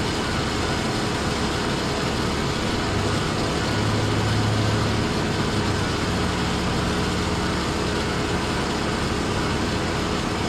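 An engine idling steadily, a constant low hum with a steady hiss over it; the hum swells slightly around four to five seconds in.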